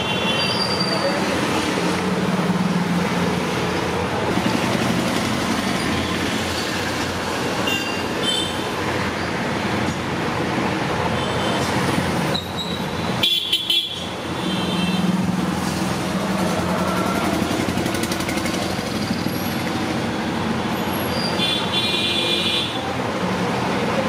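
Busy road traffic running, with several short vehicle horn toots. The loudest toots come about halfway through and near the end.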